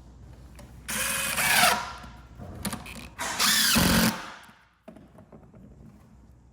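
Power drill driving screws through the subfloor into the joists to stop the nails moving and the floor squeaking, running in two bursts of about a second each, its pitch falling during each burst.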